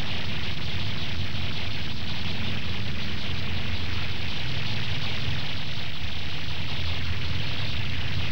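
Surf breaking on a beach: a steady rushing roar with a low rumble underneath, even in level throughout.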